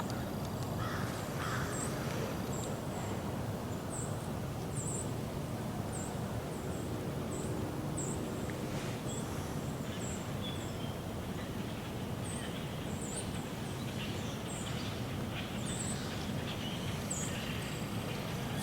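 Woodland ambience under a steady low rumble: a small bird gives short, high chirps over and over, and a crow caws a couple of times about a second in.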